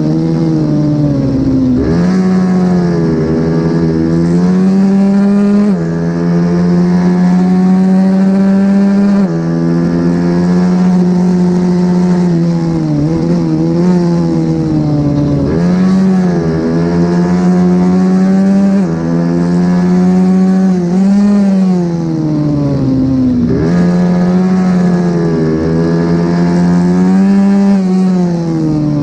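A mini racing motorcycle's engine run hard at high revs, its pitch climbing under acceleration, stepping down abruptly at gear changes and dipping as it slows for corners, over and over, with a steady rushing hiss of wind.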